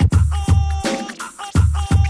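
Hip-hop style background music with a steady, repeating bass-heavy beat.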